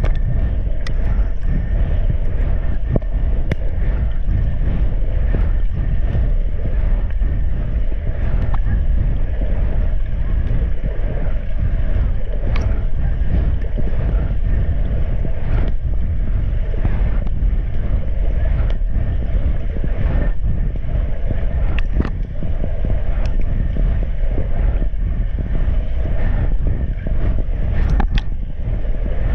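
Steady, muffled underwater rumble of pool water moving around a submerged, hand-held camera, with sharp clicks now and then.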